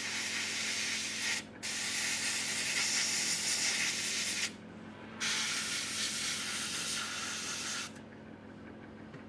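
Gravity-feed airbrush spraying paint: a hiss of air in three bursts with two short pauses, stopping about eight seconds in.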